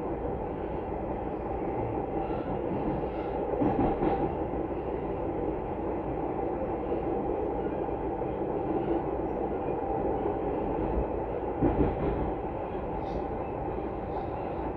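Passenger train running along the line, heard from inside the carriage: steady wheel-and-track running noise, with brief louder swells about four seconds in and again near twelve seconds.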